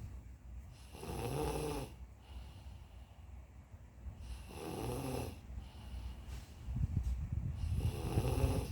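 A person snoring: three snores about three and a half seconds apart, each a raspy breath with a droning tone, the last one opening with a low flutter.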